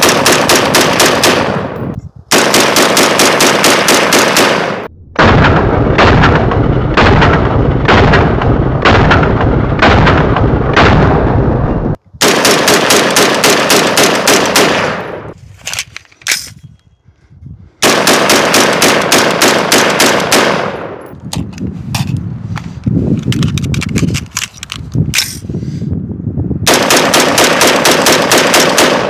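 PSA Sabre Forged 11.5-inch AR-15 pistol in 5.56 firing rapid strings of shots, several a second. The strings are broken by short pauses, and there is a slower run of single shots a little past the middle.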